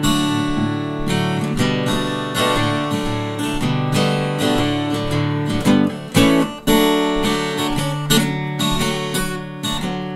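Background music: acoustic guitar playing plucked notes and strummed chords, with a short break about two-thirds of the way through.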